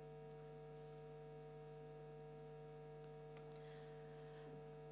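Near silence: a steady electrical hum, with a faint brief rustle about three and a half seconds in.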